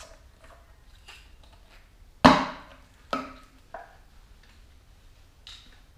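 Knocks and clunks of containers being handled: a metal can of multi-purpose thinner is put down and a plastic bottle picked up. One loud knock comes a little over two seconds in, a second about a second later, then lighter taps.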